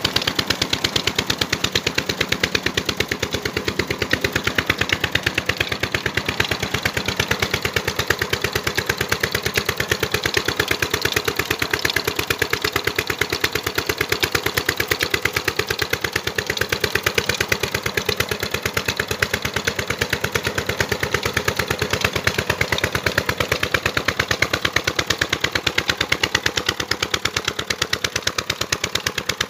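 Diesel engine driving a tubewell pump, running steadily with rapid, evenly spaced exhaust beats.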